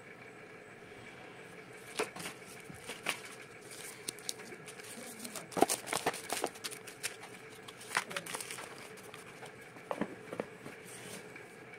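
Hands handling a smartphone and its retail box and packaging: scattered short clicks, taps and paper rustles, busiest in the middle, over a steady background hum.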